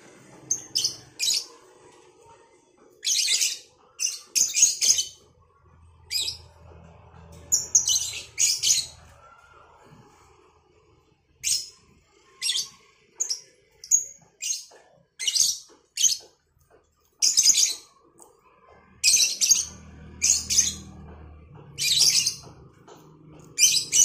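Two lovebirds calling back and forth in short, high-pitched chirps that come in irregular clusters.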